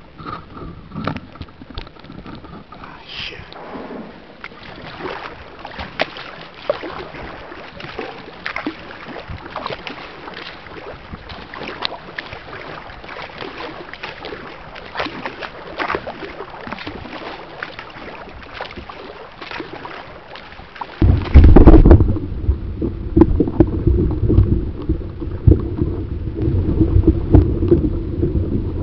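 Kayak paddling on calm water: light paddle splashes and drips. About three-quarters of the way in, a sudden loud low rumble with a steady hum takes over, from the engine of a cargo ship passing close by.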